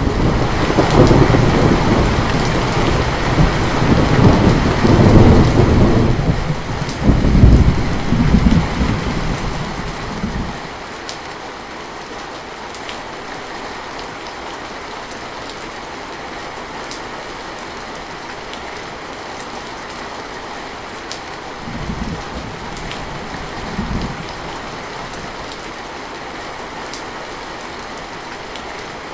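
Steady heavy rain with a long rolling thunder rumble that starts suddenly at the outset and fades out about ten seconds in. Later come two short, quieter rumbles about two seconds apart.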